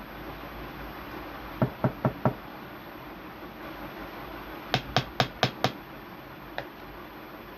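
Sharp knocks in quick runs: four in a row about a second and a half in, five in a row near the middle, then a single softer one. A steady hiss runs underneath.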